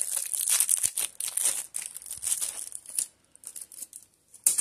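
Packaging crinkling and rustling as it is handled and pulled open, with dense crackling for about three seconds, then a few scattered crackles and a sharp click near the end.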